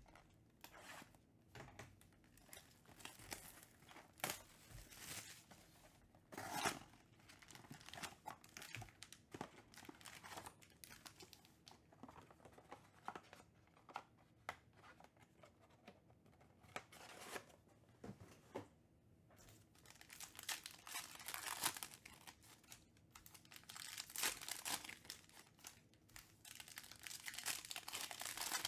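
Foil trading-card packs handled and ripped open by hand: quiet crinkling and crackling of the wrappers, with brief tearing rips, busiest near the end.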